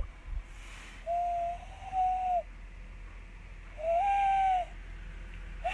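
A man whistling long, low, steady notes as a mock mating call. There are two held whistles a couple of seconds apart, and a short third one at the very end.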